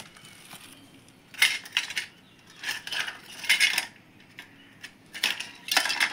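Toy boats and a toy car being picked up and knocked together: four or five short bursts of light clinking and clattering of small hard objects.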